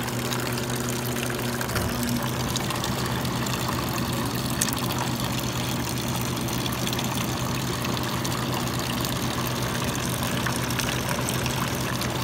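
Evaporative (swamp) cooler blower running on high cool with a steady hum, which shifts slightly about two seconds in. A stream of water from a garden hose splashes into the cooler's water trough.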